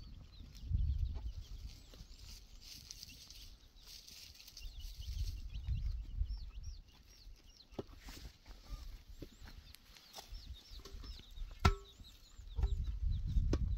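Birds chirping in quick, high calls throughout, with a low rumble that swells and fades at times. A single sharp knock just before the end as a hollow concrete block is set down on stony ground.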